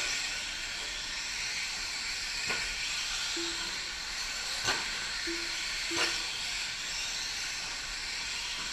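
Electric 4WD short course RC trucks racing on a dirt track: a steady high hiss and whine of motors and tyres, broken by three sharp knocks as trucks land or strike the borders. Three short low beeps sound over it.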